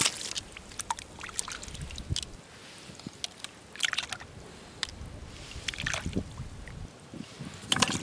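Scattered short wet squelches and clicks of walking on and picking over a wet tidal mudflat, gathering shellfish. There are bunches of them near the start, around the middle and near the end.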